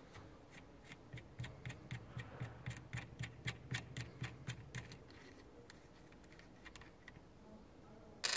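Faint, even metallic clicking, about four a second, from a SRAM G-series internal gear hub as its cone-side counter nut is turned off the axle by hand. One sharper click comes near the end.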